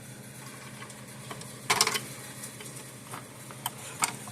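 Small clicks and rattles of wire leads and their spade connectors being handled and pushed onto a fence energizer's circuit board, the loudest cluster about two seconds in and a few single ticks after. A faint steady hum runs underneath.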